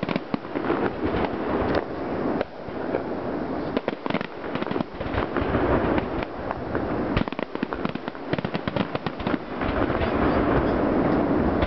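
Fireworks display: aerial shells bursting in a rapid, overlapping barrage of bangs and crackling that barely lets up.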